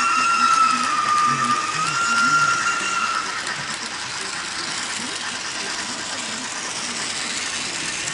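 Model freight train running on the layout's track with a steady mechanical rattle. For the first three seconds a loud, high, steady tone sounds over it, stepping up in pitch about two seconds in.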